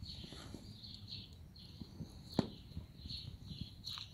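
Dog eating cake from a plastic bowl: irregular wet chewing and lapping smacks with small clicks, and one sharp click about two and a half seconds in.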